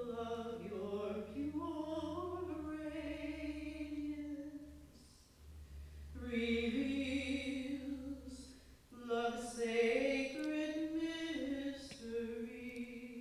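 A woman singing unaccompanied, a slow devotional song to Mary in long held and gliding notes. It comes in three phrases, with short breaks at about five seconds and about nine seconds in.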